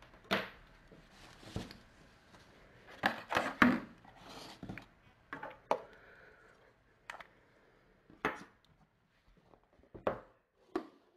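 Hands packing a 3D pen and its accessories into a cardboard box on a table: a series of irregular light knocks, taps and rustles, the loudest cluster about three seconds in, thinning out toward the end.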